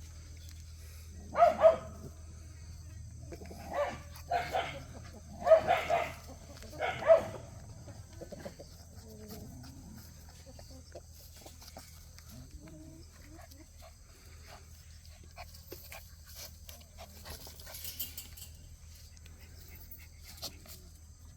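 Young Jindo dogs barking: a run of short, sharp barks in four quick clusters over the first seven seconds, then only faint clicks and scuffs.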